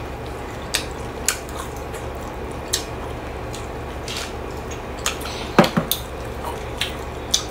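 Small scattered clicks and taps of eating by hand at a table, about nine in all, with the loudest a little past halfway, over a steady low hum.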